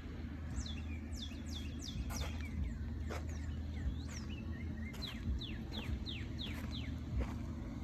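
Birds chirping outdoors, with runs of quick, downward-sliding notes, over a low steady rumble.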